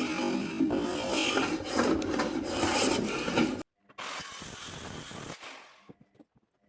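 Stanley No. 6 fore plane shaving glued-up 2x4 timber in rapid, repeated strokes. The sound cuts off suddenly a little past halfway, comes back softer for about a second and a half, then dies away to a few faint knocks.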